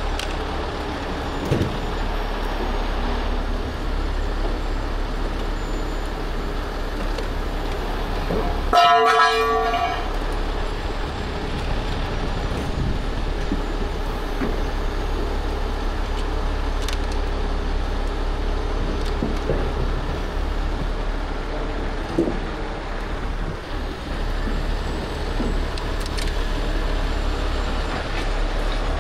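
Heavy rotator tow trucks' diesel engines running steadily with a low rumble. About nine seconds in, one ringing metal clang sounds for about a second.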